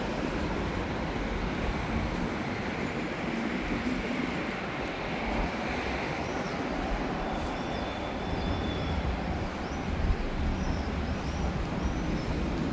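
Steady vehicle noise, a continuous rumble with hiss, with faint short high chirps in the second half.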